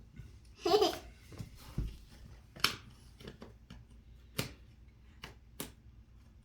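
Jigsaw puzzle pieces being handled and set down on a table: a handful of short, sharp clicks and taps a second or so apart.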